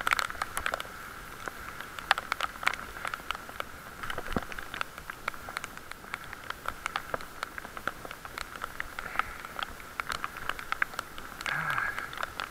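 Heavy rain, with raindrops striking close to the microphone as many sharp, irregular ticks over a steady hiss.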